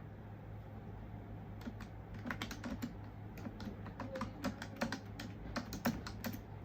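Typing on a keyboard: irregular runs of key clicks, picking up about a second and a half in and continuing until near the end.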